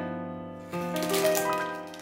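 Background music holding sustained chords, with a clear plastic bag crinkling for about a second, starting a little under a second in, as it is lifted out of a box.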